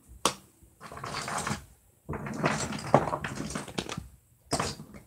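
Rustling and knocking of toys being handled and rummaged through, with a sharp click just after the start, a longer spell of dense rustling and clatter in the middle, and another sharp knock near the end.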